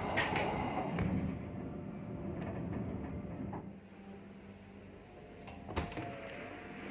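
Passenger train carriage door being handled in the vestibule over the carriage's low steady hum. There are a few light clicks at first, then a sharp clunk near the end as the door is shut and latched.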